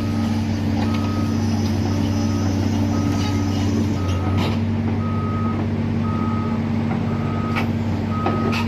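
Heavy diesel machinery running steadily while a reversing alarm beeps about once a second, with a few sharp metal clanks.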